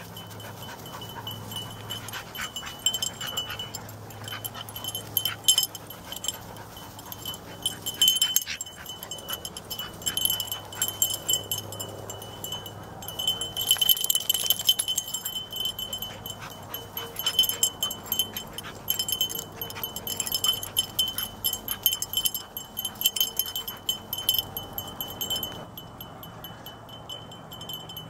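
Repeated light metallic jingling and clinking of dog collar tags and harness hardware as harnessed dogs move about and shake, over a steady high tone. The jingling thins out near the end.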